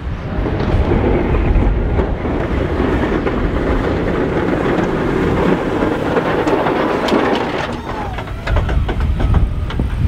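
Ford F-250 pickup with a Boss DXT plow pushing heavy wet snow: a steady rumble of the truck and the steel blade scraping along the pavement, dipping briefly about eight seconds in.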